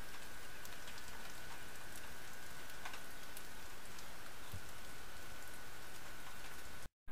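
Melting ice dripping and pattering steadily, sounding like rain. It cuts off suddenly near the end.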